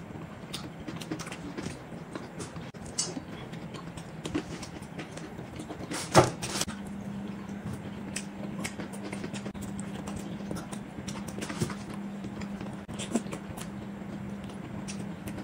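Close-up eating sounds: chewing and chopsticks tapping on dishes as food is picked up, with one sharp clink of chopsticks on a dish about six seconds in. A low steady hum comes in just after the clink.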